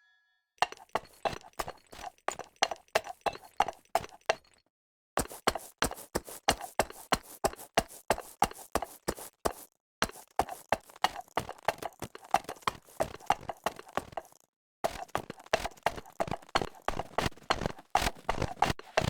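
Hoofbeats as a reindeer-hooves sound effect: quick, even trotting clip-clop on a hard surface, played as four runs separated by brief pauses.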